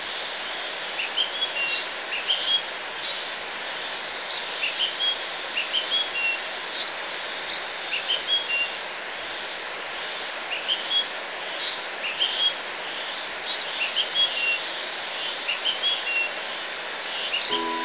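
Small birds chirping in short, high, repeated phrases every second or so over a steady rushing background noise.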